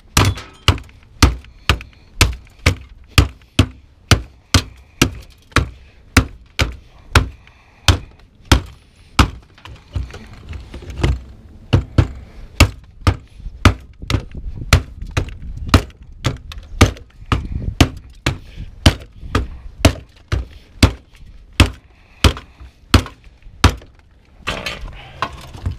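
Small hammer striking the stuck pin that holds a washing machine motor in place: a long run of sharp blows, about two a second, with a short pause partway through. The pin is not giving.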